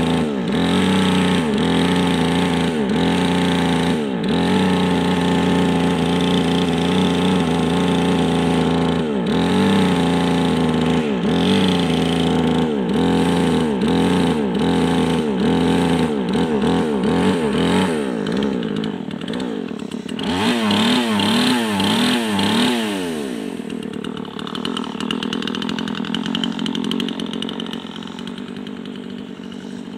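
Craftsman two-stroke chainsaw cutting into a large white pine log, its engine note dipping and recovering over and over as the chain works through the wood. About twenty seconds in the pitch swings quickly up and down, then the saw settles to a quieter, lower running.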